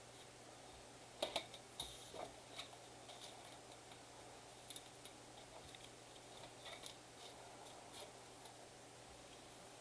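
Faint handling of trading-card packaging: scattered light clicks and crinkles of cardboard and wrappers, the sharpest about a second in.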